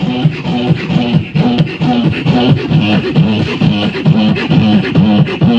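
Live beatboxing into a handheld microphone, amplified through a loudspeaker: a steady rhythmic beat of hummed bass notes, about three a second, with sharp vocal clicks and snares over them.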